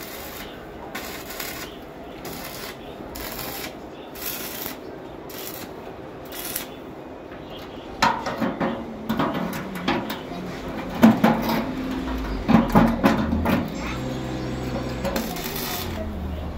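Stick (arc) welding on a steel frame, the arc crackling and sputtering in irregular spurts. Past the middle come several sharp knocks, then a steady low hum.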